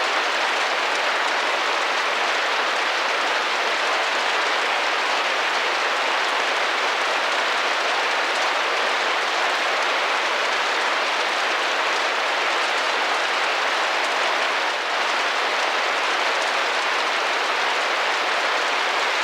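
Rain falling steadily against a window: an even hiss of many drops that keeps the same level throughout.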